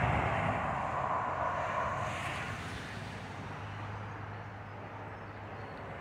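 A passing motor vehicle, its tyre and engine noise fading slowly away.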